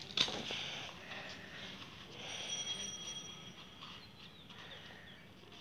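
Handling noise as a cardboard protractor is fitted onto a cylinder over newspaper: a sharp knock just after the start, then soft rustling and scraping. A brief high, thin tone sounds in the middle.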